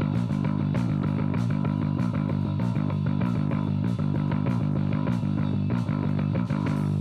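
Electric bass guitar playing a fast, dense rock passage, with sharp hits roughly every half second.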